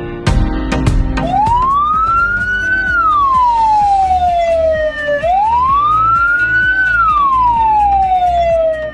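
Ambulance siren in a slow wail, two cycles: each rises for about a second and a half, then falls slowly for about two and a half seconds before climbing again. A beat of music plays for the first second, before the siren starts.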